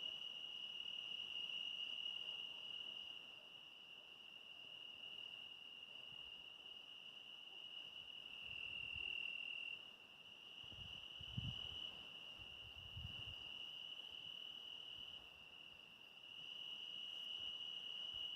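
Crickets trilling continuously in a steady high-pitched chorus that swells and fades in loudness, with a few brief low rumbles about two thirds of the way through.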